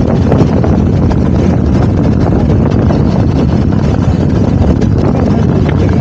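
Steady wind buffeting on the microphone over the running of a BMW R1250 GSA's boxer-twin engine while riding at an even pace.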